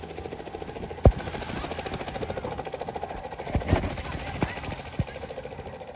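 Aircraft engines and propellers droning overhead, a steady fast pulsing hum. Several sharp thumps come over it about a second in and again in the second half.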